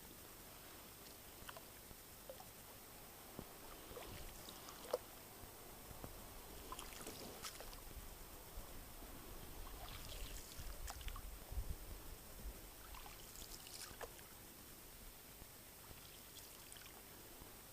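Faint paddling of an inflatable boat: soft paddle splashes and water dripping off the blade, coming in clusters every few seconds, with a low rumble around the middle.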